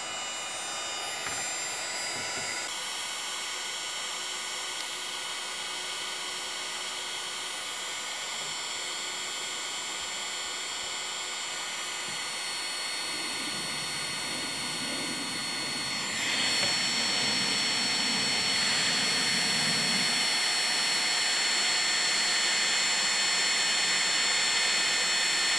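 Electric heat gun running steadily, its fan whining over a hiss of blown air as it shrinks a heat-shrink crimp connector onto a wire. It gets louder about two-thirds of the way through and stops right at the end.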